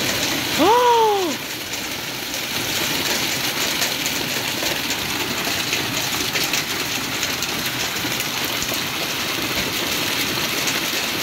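Small hailstones pelting down steadily in a thunderstorm: a dense hiss with many fine ticks of stones hitting the ground and paving. Near the start, a short rising-and-falling vocal "ooh".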